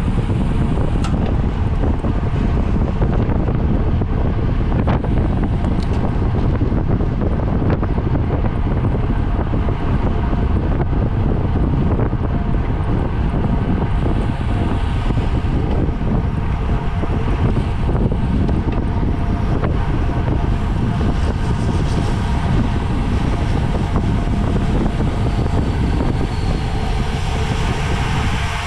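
Steady wind rushing over the microphone, as when riding a racing bicycle at speed, with faint steady tones underneath.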